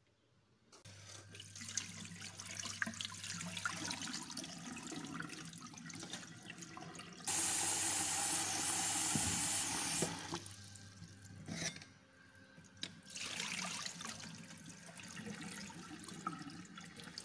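Brown lentils being washed in a steel pot: water splashes and swishes over them, and a kitchen tap runs steadily into the pot for about three seconds in the middle. Near the end the rinse water is poured off into a stainless steel sink.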